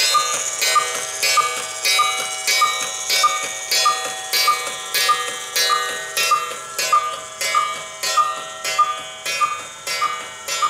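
Cuckoo clock cuckooing over and over without stopping, in an even beat of a little under two calls a second. The clock's cuckoo mechanism fails to shut off, so it keeps calling until the weight runs down.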